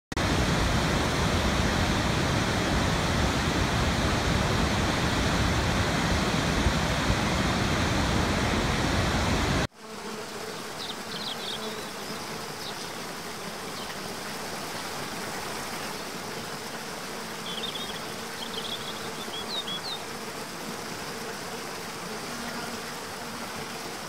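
Large waterfall's loud, steady rush of falling water, full and deep. About ten seconds in it cuts to a smaller forest cascade, quieter and thinner, with a few short high chirps over it.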